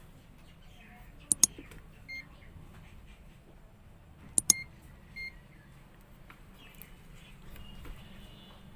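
Two quick double clicks of a mouse-click sound effect, about three seconds apart, each followed shortly after by a short high beep: the sound effects of an animated like-and-subscribe button overlay.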